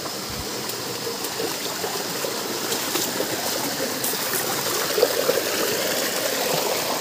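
Stream water running steadily over rocks, with a short louder spot about five seconds in.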